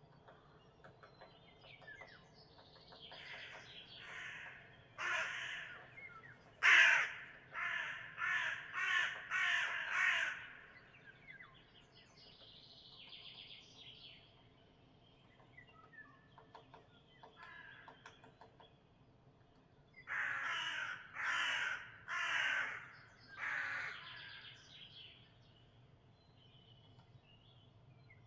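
A crow cawing: a run of harsh caws, about six in five seconds, then a pause and four more. Faint chirps of smaller birds sound between them.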